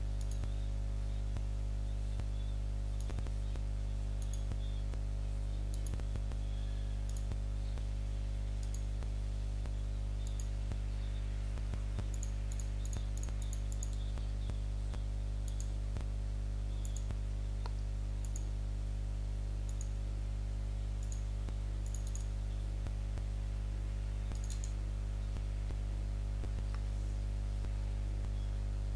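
Computer mouse clicking every second or two, some clicks in quick pairs, as points of a contour line are placed, over a steady electrical hum.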